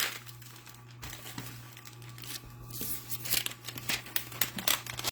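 Plastic-filmed diamond-painting canvas being handled and smoothed flat, crinkling in irregular rustles that get busier and louder toward the end, over a low steady hum.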